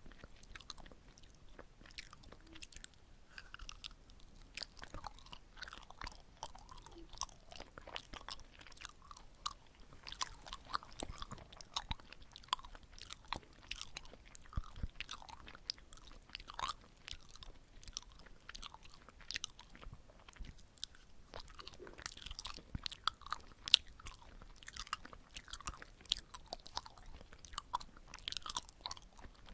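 Close-up chewing of sticky red-bean rice cakes (chapssaltteok), with soft, sticky, wet mouth clicks and smacks throughout.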